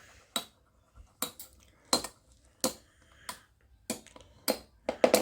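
Metal Fight Beyblade tops, Lightning L-Drago and Fang Leone, clashing in a plastic stadium: a series of sharp clacks about half a second to a second apart, with a quick cluster near the end.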